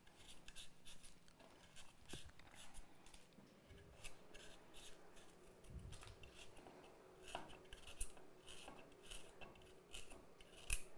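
Small knife slicing a carrot held in the hand, a faint irregular run of short crisp cuts, about two to three a second, with a slightly louder one near the end.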